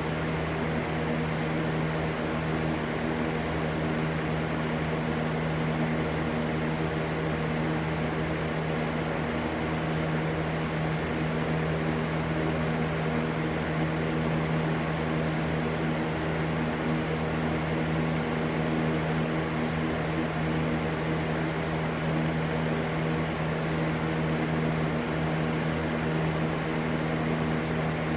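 Electric fan running steadily: an even rushing white noise with a low motor hum under it.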